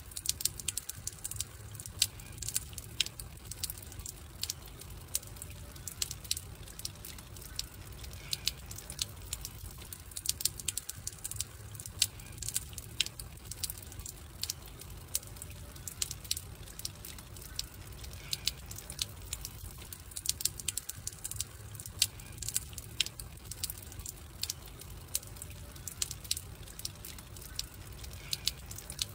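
Wood campfire crackling: a steady low rumble of burning with frequent sharp, irregular pops and snaps.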